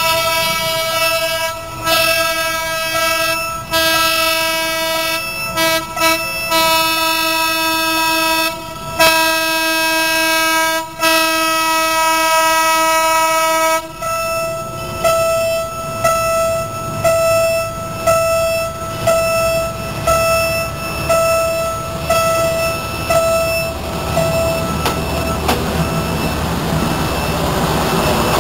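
Diesel train horn sounding long held blasts with brief breaks, then short pulses about once a second as the train nears a level crossing. In the last few seconds the low rumble of the train's engine and wheels rises as it passes close by.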